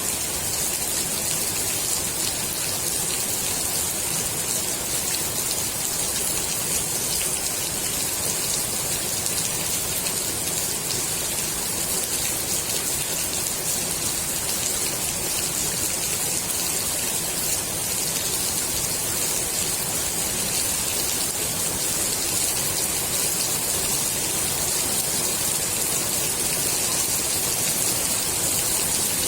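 Steady rain falling onto the water of a swimming pool, a dense even hiss of drops.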